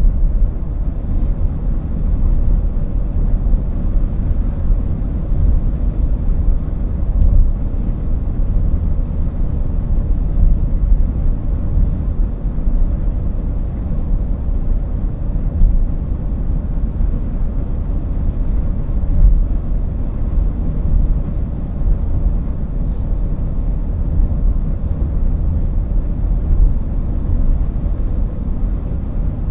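Steady low road rumble inside a car's cabin at cruising speed: tyre and engine noise with no change in pace, and a couple of faint ticks.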